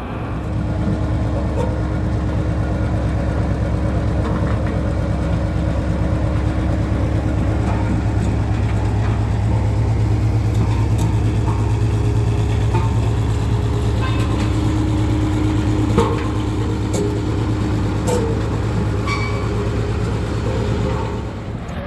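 Diesel engine of heavy road-construction machinery running steadily, a loud low drone with an even pulsing. One sharp knock sounds about sixteen seconds in.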